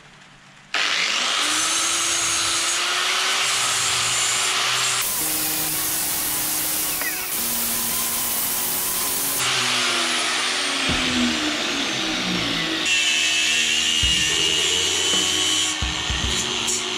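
Electric angle grinder starting up about a second in and then grinding a steel plate clamped in a vise, a loud steady hiss of the disc on metal. The pitch and texture of the grinding change a few times, and near the end a different power tool is working the steel.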